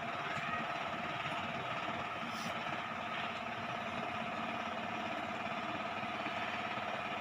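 A small motor humming steadily, with two held tones over an even hiss and a low rumble.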